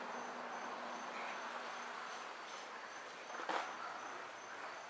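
Insects chirping in a steady rhythm, about three short high chirps a second, over a faint outdoor hiss, with a single brief thump about three and a half seconds in.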